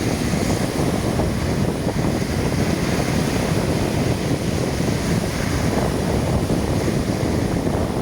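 Wind buffeting the microphone over the wash of sea waves: a steady, deep, rough noise with no breaks.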